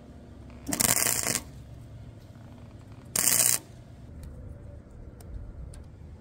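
Two short bursts of arc-welding crackle, each under a second, the second about two seconds after the first: tack welds joining a rust-repair patch into a steel door panel.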